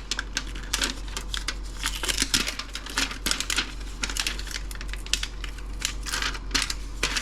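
Plastic insulating sheet being peeled off the back of a laptop dock's circuit board, giving an irregular run of sharp crackles and clicks.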